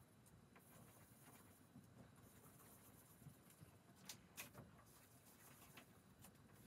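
Faint pencil scratching and light tapping on paper taped to a wall as small dots are drawn one after another, with two sharper ticks about four seconds in. Otherwise near-silent room tone.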